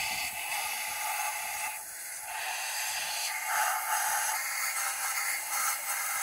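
Compressed-air solvent spray gun hissing as it washes down a cylinder head, the hiss dipping briefly about two seconds in.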